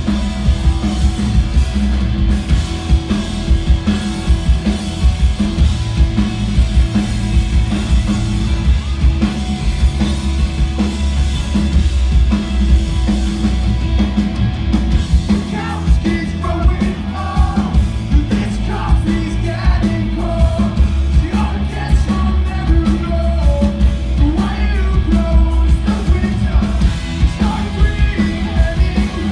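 Live rock band playing, heard from the crowd: electric guitars, bass guitar and drums, with a male voice singing from about halfway through.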